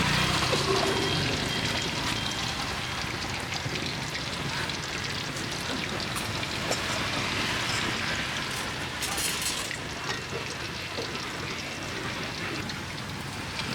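Fish balls frying in hot oil: a steady sizzling hiss that eases off slightly as it goes on.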